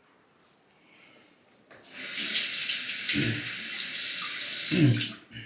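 Tap running into a sink for about three seconds, starting about two seconds in and shutting off just before the end, with two dull knocks under the running water.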